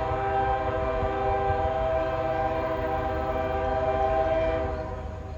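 Norfolk Southern diesel locomotive's multi-chime air horn sounding one long steady blast that fades out near the end, over a low rumble.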